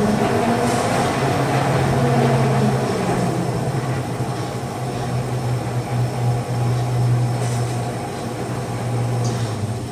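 DoALL C1321 horizontal band saw running through its automatic cut cycle: a steady motor hum with the blade cutting through the stock, dropping off near the end.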